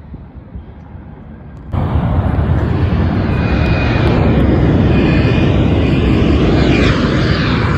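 Faint distant jet rumble, then, after a cut about two seconds in, the loud steady roar of a Delta Boeing 767-400ER's twin turbofan engines at takeoff power as the jet rolls down the runway, with a faint high whine over it.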